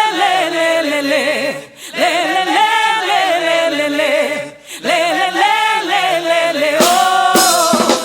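Voices singing unaccompanied: long held phrases with vibrato, broken twice by short pauses.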